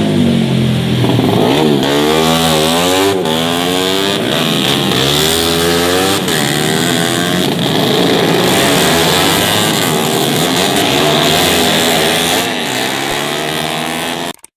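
Several tuned 150 cc four-stroke underbone racing motorcycles running hard, their engine notes overlapping and climbing and dropping in pitch again and again.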